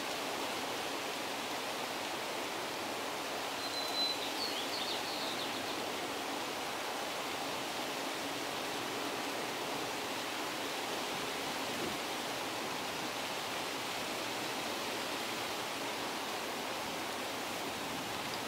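Steady outdoor background hiss, with a brief high chirp about four seconds in.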